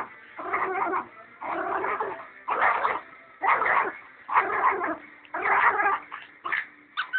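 Small pug–chihuahua mix dog making growling, whining play noises in short bursts about once a second as he tussles with a toy.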